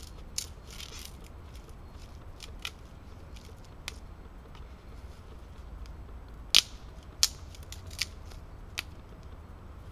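Knife working a wooden stick: a series of separate sharp wood snaps and cracks, about eight of them spaced irregularly, the loudest about six and a half seconds in.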